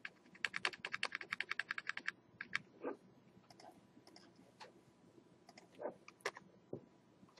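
A computer keyboard key tapped rapidly, about ten taps a second for nearly two seconds, nudging a selected drawing down step by step, followed by a few single clicks.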